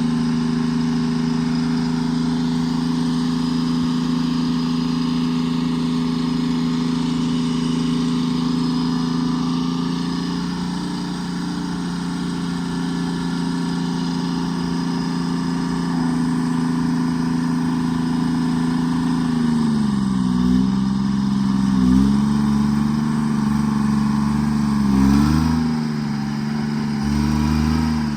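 Forestry forwarder's diesel engine running at a steady speed. In the last third its pitch dips and recovers about four times as the engine is loaded.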